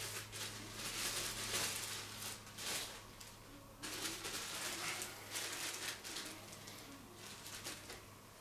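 Irregular rustling and crinkling of packaging as the statue's folded cloth cape is taken out and handled, in bursts of about a second, growing quieter near the end.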